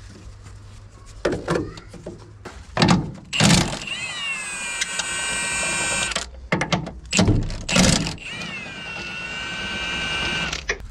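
A small electric motor whines twice for about two seconds each, its pitch dipping slightly as it starts and then holding steady, with knocks of metal tools before each run.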